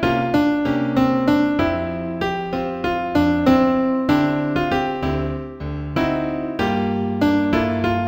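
New-age piano music in F minor: melody notes and chords struck a few times a second, each ringing and fading.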